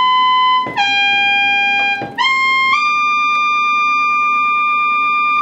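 ARP Pro/DGX monophonic analog synthesizer playing a bright, buzzy lead tone. It holds a high note, drops to a lower one about a second in, then climbs in two quick steps to a higher note that it holds. Each new pitch is reached with a short slide.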